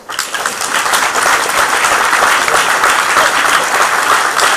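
Audience applauding, breaking out suddenly and continuing loudly, with one pair of hands clapping close to the microphone.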